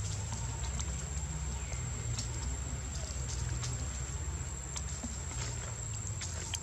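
Outdoor ambience: a steady low rumble and a constant high thin whine, with a few faint light clicks and rustles of dry leaves as young macaques move about on the ground.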